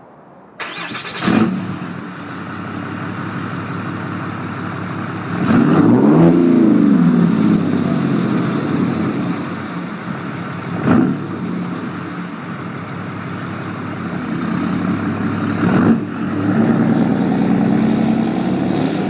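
6.7 L Cummins turbo-diesel truck engine under way, accelerating in surges with its variable-geometry turbo whistling. The turbo vanes are set by a Smarty S-67 tuner on VGT level 2. The engine note swells and falls several times, loudest about six seconds in and again near the end, and is broken by a few sharp knocks.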